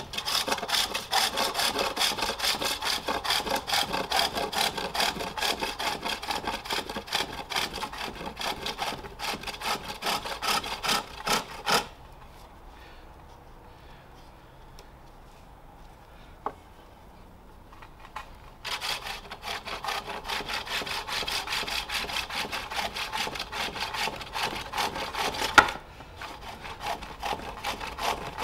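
Self-forged turning tool cutting jacaranda wood on a spring pole lathe: a rough, rasping shaving sound in quick repeated strokes. The cutting stops for about six seconds near the middle, then starts again, with one sharp knock a few seconds before the end.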